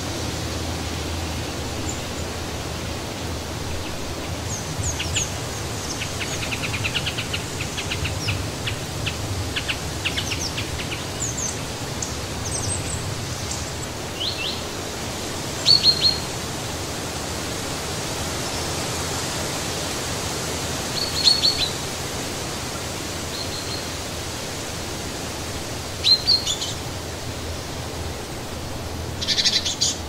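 Steady wind in the trees, with small birds chirping over it: a quick series of short high chirps early on, then brief single calls every five seconds or so.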